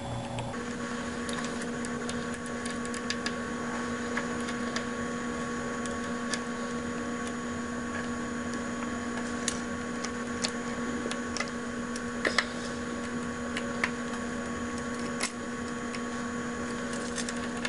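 Light metallic clicks and taps of a hex key and screws on an aluminium base plate as the bearing screws are tightened, scattered and irregular, with a few sharper clicks about twelve seconds in. A steady hum lies under it throughout.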